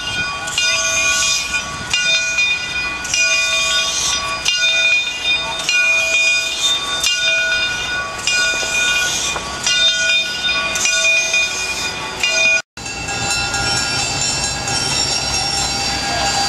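Steam locomotive bell ringing over and over, with a hiss of exhaust steam every couple of seconds as the engine moves slowly. After a brief dropout near the end, the locomotive rolls past with a low rumble under the continuing ringing.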